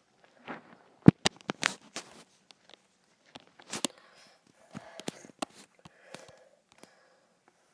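Irregular light clicks and taps close to the microphone, the sharpest about a second in, with soft sniffs between them.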